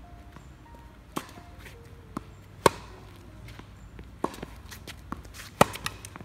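Tennis rally on a hard court: rackets striking the ball and the ball bouncing, a string of sharp knocks about a second apart, the loudest about two and a half seconds in and again near the end.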